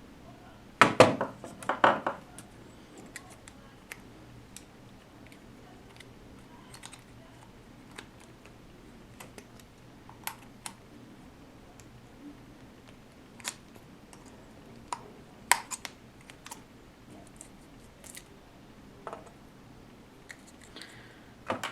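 Hand tools clicking, tapping and scraping on the metal can of an 18650 lithium-ion cell as it is worked open: a louder cluster of clatter about a second in, then scattered single clicks.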